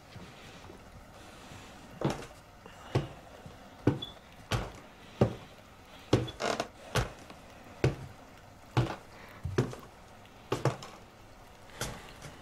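Footsteps of two people going down wooden stairs: a string of irregular thuds, roughly one a second, some close together in pairs.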